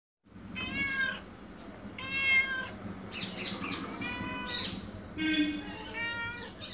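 Orange tabby cat meowing over and over, a string of separate meows about a second apart.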